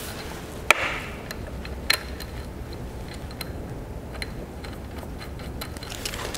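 Small ratchet wrench clicking as it runs the 12 mm nut down on the starter motor's positive terminal, with faint ticks throughout and two sharper metal clicks, one about a second in and one about two seconds in, over a low steady hum.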